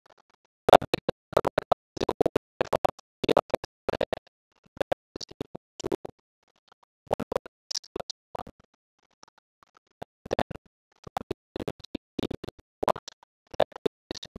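Stylus scratching and tapping on a pen tablet during handwriting, in quick irregular strokes with short silent gaps between letters.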